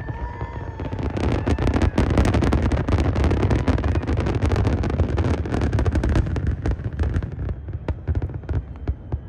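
Fireworks going off in a dense barrage: rapid crackling over a deep, continuous rumble of bursts. It thins out to fewer, separate bangs near the end.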